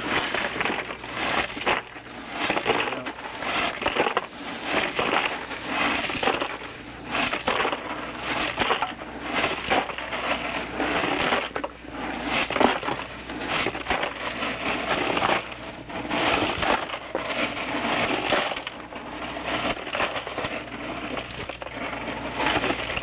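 Ice in a cooler being dug through, crunching and rattling in irregular bursts.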